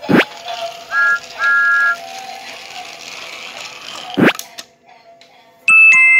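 Train whistle sound tooting twice, a short then a longer two-note toot, with a quick falling swoosh at the start and again about four seconds in, over a steady hiss. Near the end comes a louder, brighter whistle-like chord.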